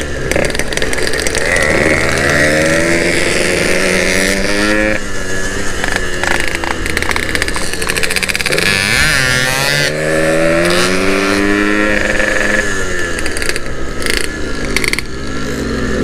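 Yamaha RX-King's 135 cc two-stroke single-cylinder engine under way. It revs up again and again, the note climbing and dropping back at each gear change.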